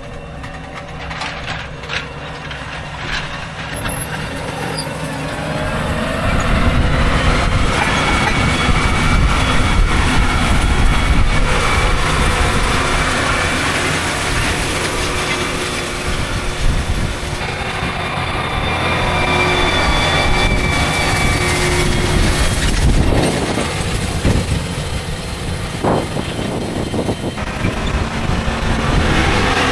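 Case IH Magnum 380CVT tractor running under load, pulling a John Deere 2510H anhydrous ammonia applicator bar through the soil: a steady engine drone with the rattle of the applicator. It grows louder over the first several seconds as the rig comes close, then stays steady.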